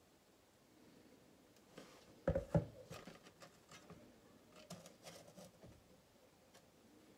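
A spoon scraping and knocking while thick chocolate cheesecake mixture is spooned into chocolate Easter egg halves: a few sharp knocks a little over two seconds in, then lighter scrapes and taps.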